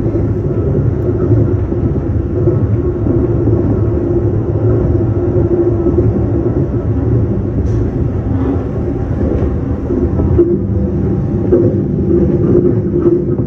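Local train running at speed between stations, heard from inside the carriage: a steady rumble with a constant hum and a few faint clicks from the wheels.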